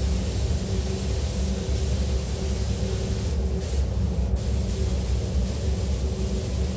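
Steady hum of a paint booth's ventilation, with the hiss of a compressed-air spray gun on top; the hiss drops out for about a second midway, then resumes.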